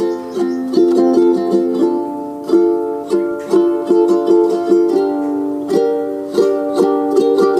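Background music: a light instrumental tune of plucked strings in a ukulele-like sound, notes picked about twice a second over a held chord.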